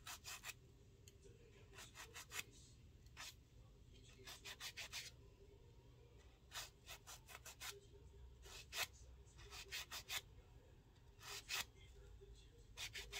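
Faint quick rubbing strokes of a nail file on a fingernail, in short runs of a few strokes with brief pauses between.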